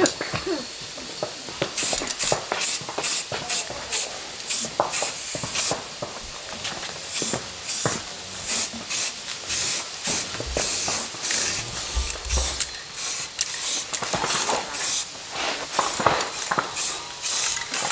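Short, irregular bursts of hissing spray from a pressurised nozzle, about one or two a second, as if a trigger were pulled and released over and over.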